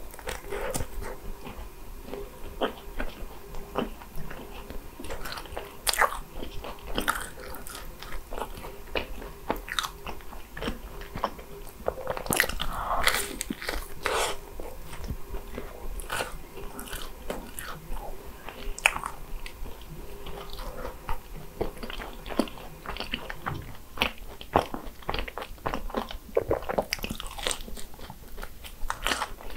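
Close-miked biting and chewing of crisp croffles (croissant waffles), with irregular crunches throughout.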